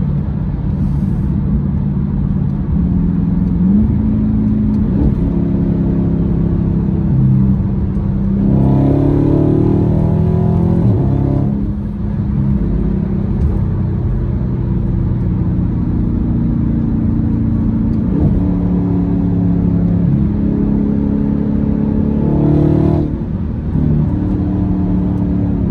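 Dodge Charger Scat Pack's 392 (6.4-litre) HEMI V8 heard from inside the cabin while driving, accelerating with its pitch climbing and then dropping in steps as it shifts up. The hardest, loudest pull comes about eight to eleven seconds in.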